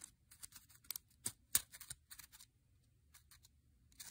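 Faint, irregular light clicks and scrapes of a handheld resistor color-code calculator being turned and handled, with a slightly louder click near the end.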